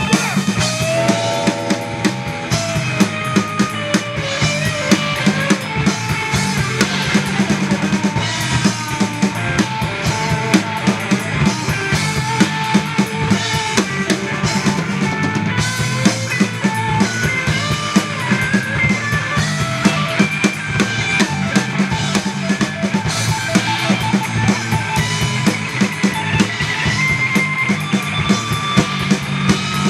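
Live rock band playing an instrumental passage with no vocals: electric guitars and bass guitar over a drum kit keeping a steady beat of kick, snare and cymbals, with guitar lead lines on top.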